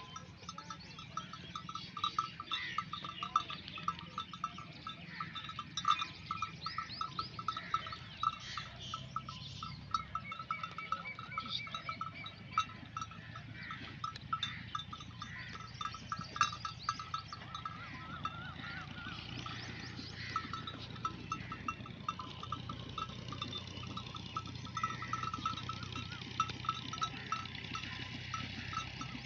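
Bells hung on a grazing flock of fat-tailed dumba sheep, clinking and jingling in a dense, continuous, irregular patter as the animals move and feed.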